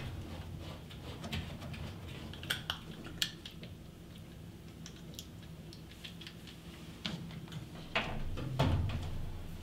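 Scattered small metallic clicks and clinks as a braided stainless-steel washing machine hose and its threaded coupling are handled and screwed onto the machine's water inlet, with a cluster of louder knocks about eight seconds in.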